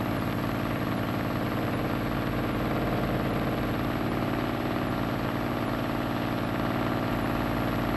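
An Ilyushin Il-2's V12 piston engine running steadily during ground checks, an even, unchanging drone on an old film soundtrack.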